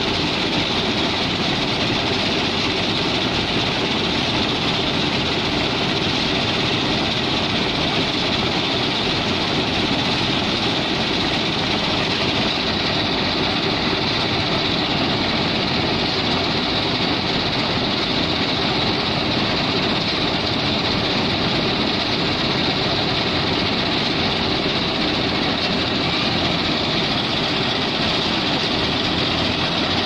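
Eicher 557 tractor engine running under load, driving a tractor-mounted combine harvester whose unloading auger pours threshed grain into a trailer: one continuous, even mechanical din.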